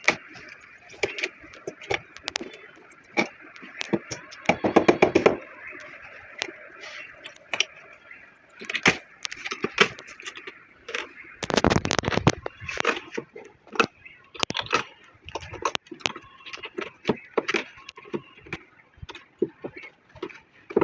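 Irregular clicks, knocks and scraping from hand work on an old sofa's frame and upholstery, with two longer, denser bursts of rapid clatter.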